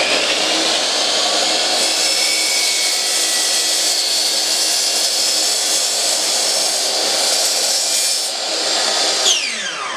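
Power tool running steadily at full speed for about nine seconds, then switched off and spinning down in a falling whine near the end.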